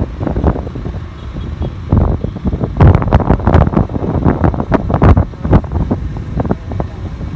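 Wind buffeting the microphone on a moving motorcycle, gusting unevenly over the bike's running engine.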